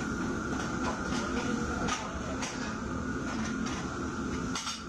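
Busy commercial kitchen: the steady noise of the range burners and extraction hood over the cooking line, with a few short clinks and clatters of metal cookware and utensils.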